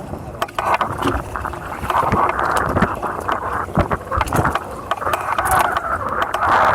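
Hobie Cat 16 catamaran under sail: a steady rush of water and wind noise along the hulls, broken by many short sharp knocks and taps.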